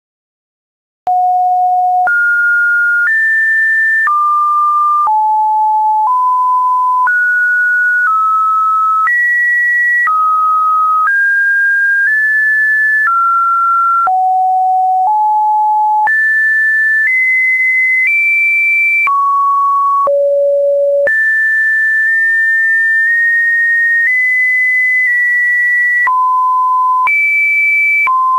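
Webdriver Torso test-video audio: a string of pure electronic beeps, one tone per second, each at a different pitch jumping unpredictably between mid and high, starting about a second in.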